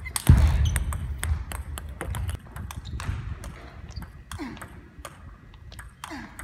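Table tennis rally: the plastic ball clicking off the rackets and the table in quick succession as a defender's forehand chops meet an attacker's strokes, with a loud low thud of footwork about a third of a second in.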